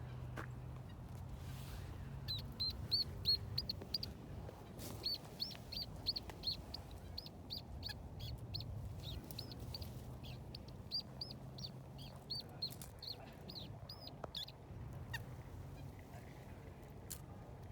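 A small wild bird calling a long series of short, high chirps, about three a second, stopping after about twelve seconds. A faint low steady hum lies underneath.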